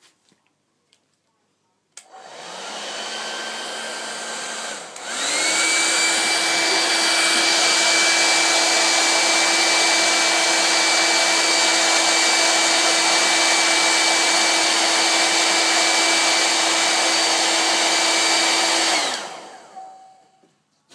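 Handheld hair dryer switched on at a low setting about two seconds in, then switched up to a louder, higher-pitched high setting about three seconds later. It runs steadily with a fan whine over the rush of air, then is switched off near the end and winds down.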